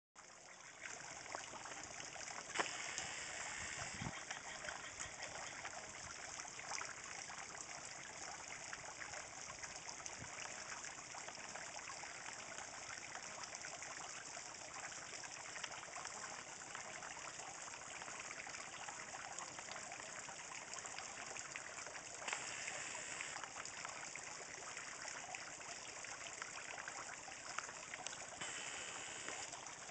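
Water trickling steadily in a small garden pond, with a couple of brief clicks.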